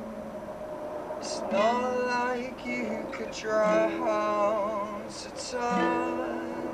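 A man singing over an acoustic guitar: three sung phrases with a wavering vibrato, over held guitar notes.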